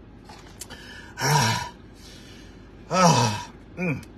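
A man's breathy groans, three short ones, each sliding down in pitch, the second the loudest: a reaction to the burn of very spicy hot chicken.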